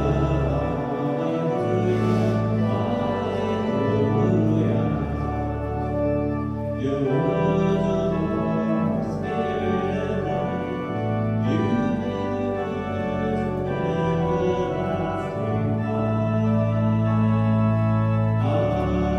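Church organ playing slow, sustained chords as liturgical music during Mass.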